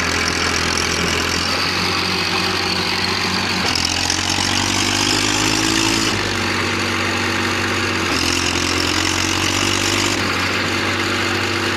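Massey Ferguson 1035 tractor's three-cylinder diesel engine running steadily under load while pulling a heavily loaded sugarcane trailer. Its pitch rises about four seconds in and falls back about two seconds later.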